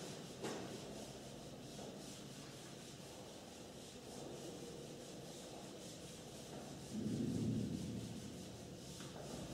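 Whiteboard eraser rubbing across a whiteboard in repeated wiping strokes. About seven seconds in there is a louder, low-pitched sound lasting about a second.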